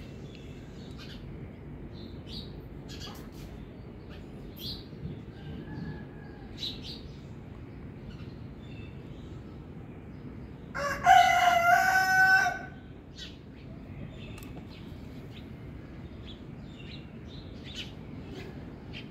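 A rooster crowing once, about eleven seconds in, for under two seconds, with faint short bird chirps scattered around it.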